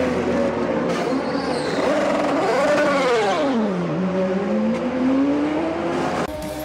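IndyCar twin-turbo V6 engines running on pit lane. About two and a half seconds in, one engine's pitch climbs and then drops steeply, then rises steadily again as the car pulls away from its pit box. The sound changes abruptly shortly before the end.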